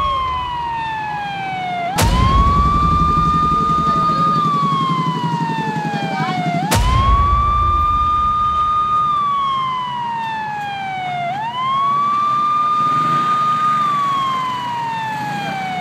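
Police car siren wailing: the pitch sweeps up quickly, holds, then falls slowly, repeating about every four and a half seconds, over a low rumble.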